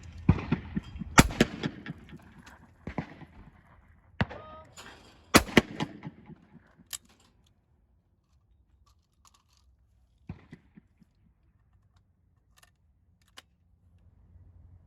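Shotgun shots on a trap range: two loud shots, about a second in and about five seconds in, the second right after a shooter's short shouted call for the target, with fainter shots from farther down the line between them. After about seven seconds only faint scattered clicks.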